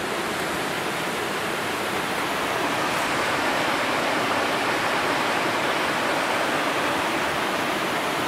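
Rushing river water: a steady, even wash of noise that swells slightly through the middle.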